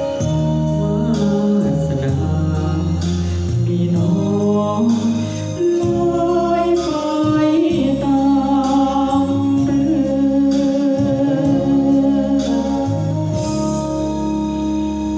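A man singing into a handheld microphone over a karaoke backing track, with the backing music keeping a steady beat throughout.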